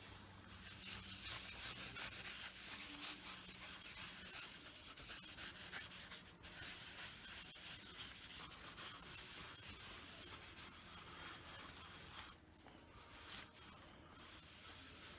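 Cloth rubbing liquid antique wax into a V-carved oak plaque: a faint, even hiss of fabric on wood, with a brief break about six seconds in, easing off about twelve seconds in.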